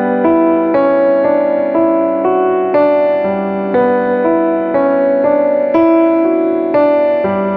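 Background music: a keyboard, electric-piano-like in tone, playing a slow, steady run of sustained notes that change about every half second.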